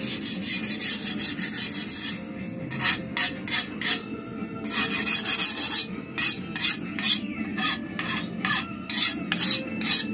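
Steel file drawn across the edge of a freshly hardened medium-to-high carbon steel knife blade, in a rapid series of short rasping strokes grouped in runs with brief pauses. This is a file test of the quenched blade, which the smith judges hard.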